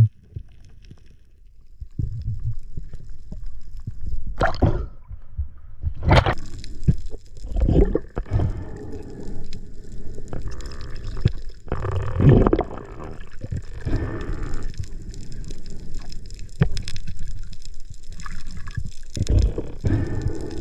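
Water surging and gurgling around an underwater camera during a spearfishing dive, with irregular knocks, the sharpest about four and six seconds in, as a speared fish on its line is drawn in.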